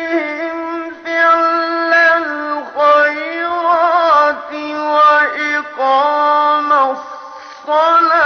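A male Quran reciter's voice chanting in maqam Nahawand, in long, ornamented melodic phrases with brief pauses for breath.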